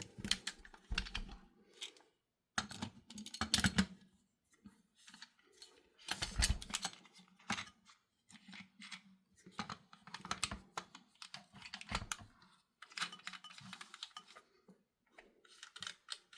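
Irregular clicks, taps and a few heavier knocks of small metal parts being handled: an optic mount being loosened and fitted onto a rifle's upper receiver.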